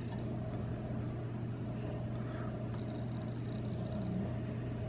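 Steady low hum and whir of a running kitchen appliance, unchanging throughout.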